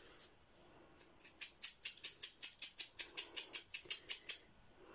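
A paintbrush handle taps rapidly against a paint-loaded stick, about six or seven light clicks a second for some three seconds, starting about a second in, flicking paint spatter onto card.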